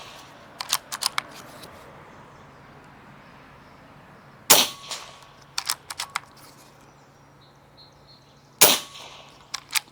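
A .22 Hatsan Flash PCP air rifle fires twice, about four seconds apart, each shot a sharp crack. After each shot come a few quick clicks as the action is worked for the next pellet.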